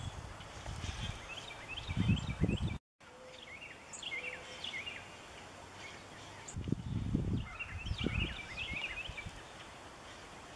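Birds chirping in short clusters of high, quick notes, over low rumbling noise that swells twice, about two seconds in and about seven seconds in.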